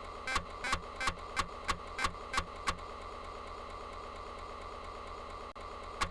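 Electronic Amiga demo soundtrack: a steady held synth tone under a quick run of short percussive hits, about three a second, that stop a little under three seconds in, leaving the tone alone, with one last hit near the end.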